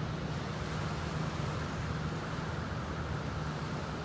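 Steady outdoor background rumble with a constant low hum underneath, no bird calls standing out.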